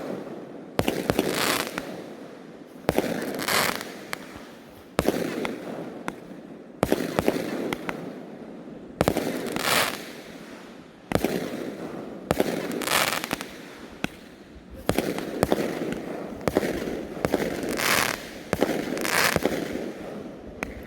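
Aerial fireworks firing in a steady series, a sharp bang about every one to two seconds, each trailing off in echo and crackle.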